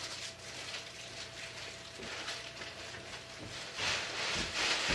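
Black plastic garbage bag and wrapping paper rustling and crinkling as trash is stuffed into the bag, louder near the end.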